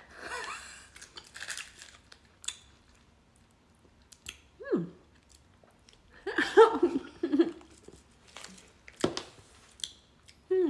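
Biting and crunching into frozen pickle-juice ice pops, with scattered crunches. Short wordless vocal reactions come in between: one falling in pitch just before the middle, and a cluster of them about two-thirds through.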